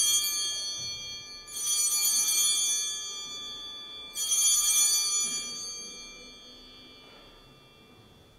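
Altar bells rung at the elevation of the consecrated host: a ring already sounding, then two more about two and a half seconds apart, each dying away.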